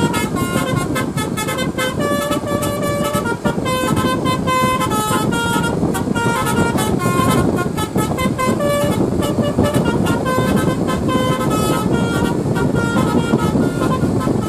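A bus's basuri telolet horn playing a quick melody of short notes that step up and down in pitch, over a steady noisy background.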